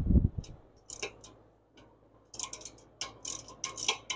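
Hand ratchet clicking as the brake caliper bolts are run down, first in a few scattered clicks and then in a rapid run of clicks from about two seconds in. A dull knock of the tool against the parts comes right at the start.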